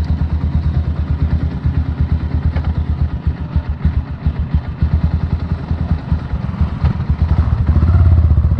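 Motorcycle engine idling with an even low chug, then revving louder about seven and a half seconds in as it pulls away.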